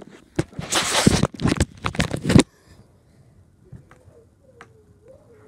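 Rustling and scraping handling noise from a phone being moved about, in a run of loud bursts with clicks that stops about two and a half seconds in; a faint wavering whine follows.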